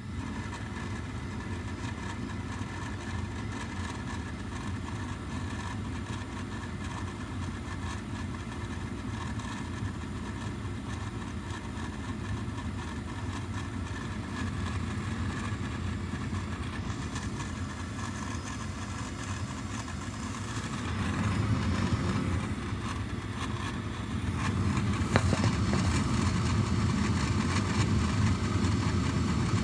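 2001 Carrier 58PAV gas furnace starting up: the draft inducer motor starts and runs with a steady hum. About 21 seconds in the sound grows louder and deeper as the burners light, with a sharp click a few seconds later.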